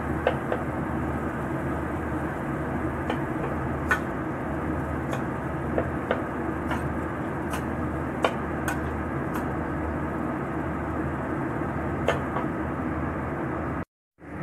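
Tuna frying in a dry pan in the oil it renders out: a steady sizzle with scattered pops and crackles, breaking off for a moment near the end.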